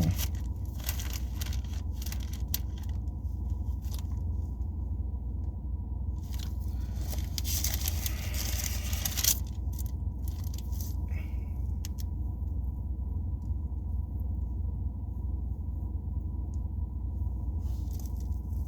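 Bible pages being leafed through: scattered paper rustles and flicks, with a longer stretch of riffling a little after the middle, over a steady low hum.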